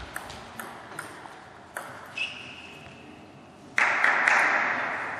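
Table tennis rally: the celluloid ball clicks off bats and table about every half second, then the rally ends and a sudden burst of applause from the hall comes in about four seconds in and slowly fades.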